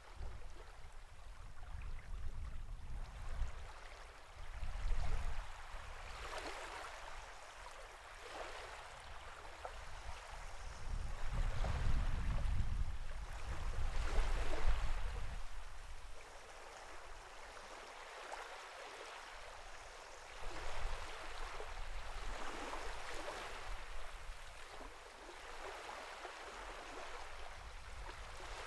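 Sea water washing and lapping in small waves, the hiss of each wave swelling and fading every few seconds. A low rumble swells in under the waves about halfway through.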